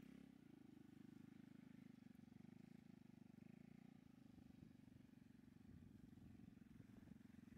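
Faint low, steady pulsing drone of a small scooter engine running.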